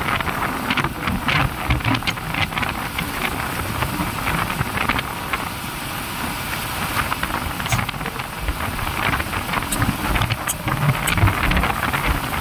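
A motorcycle riding along a concrete road: wind rushing over the microphone with engine and tyre noise underneath, and irregular small knocks and rattles.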